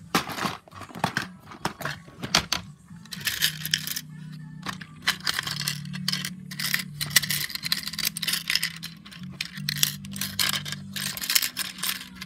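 Small hard plastic LEGO pieces clattering and clicking as fingers rummage through them in the plastic compartments of an organizer box, with many quick taps and rattles.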